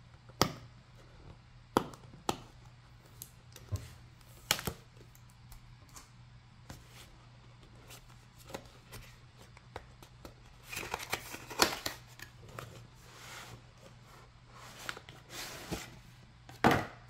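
A cardboard retail box being handled and opened by hand: scattered sharp clicks and taps, cardboard scraping and rustling in two stretches in the second half, and a loud knock near the end.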